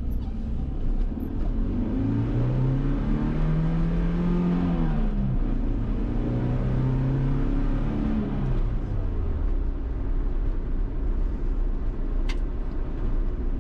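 1989 Mazda B2200 pickup's 2.2-litre four-cylinder engine pulling hard under wide-open throttle: the engine note rises, drops at a gear change about five seconds in, and rises again through the next gear before settling into a steady drone. A sharp click comes near the end.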